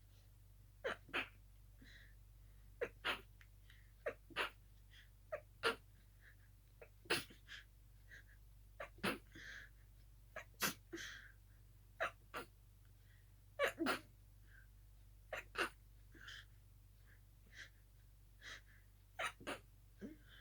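A person's sneezing fit, the sneezes stifled into short sharp bursts, often two in quick succession, well over a dozen in all. Softer short breaths come between them.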